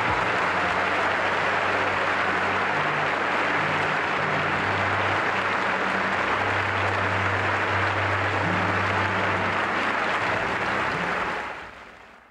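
A large audience applauding steadily, fading out near the end.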